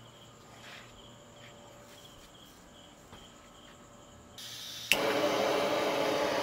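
Faint insect chirping, then a butane torch on a gas canister is opened with a short hiss, lit with a sharp click about five seconds in, and burns with a loud steady hiss as it lights charcoal in a small barbecue grill.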